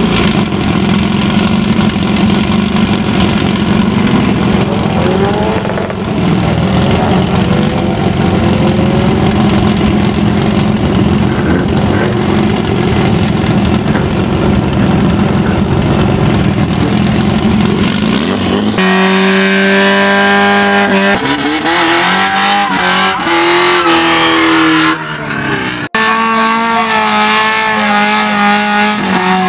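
Honda Civic EG hatchback drag car's engine running loud and rough in the staging lanes. From about two-thirds of the way in it is revved, rising then falling in pitch. Near the end it is held steady at high revs.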